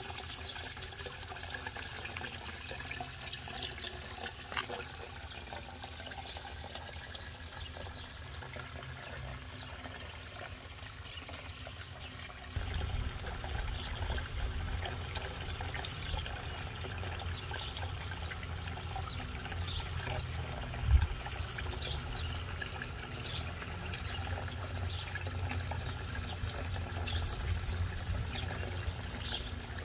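Pump-fed water spilling steadily over a plastic pond waterfall spillway into the pond. About halfway through, a low rumble joins it, with one brief thump a little later.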